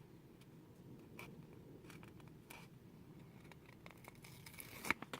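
Faint handling sounds of small plastic miniature pieces and a sticker sheet: a few soft clicks and light rustles over a low room hum.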